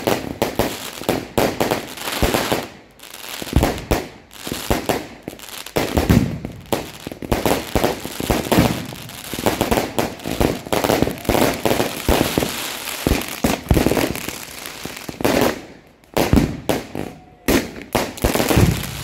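Aerial fireworks going off in quick succession: loud bangs of shells bursting, mixed with crackling, with a brief lull about sixteen seconds in.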